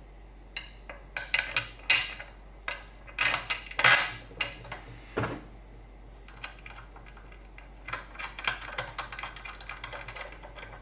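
Light metallic clinks and knocks, in two clusters, as the metal water-pump housing is handled and fitted against the engine ready for bolting.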